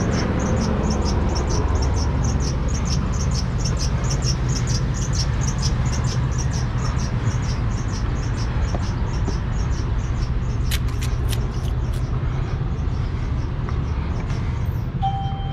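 Truck engine idling with a steady low hum. Fast, faint high ticking at about four a second runs through the first half, and a few sharp clicks come a little past the middle.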